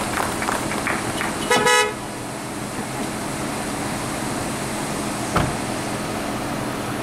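A car horn gives one short honk about a second and a half in, over the steady background noise of cars waiting in line.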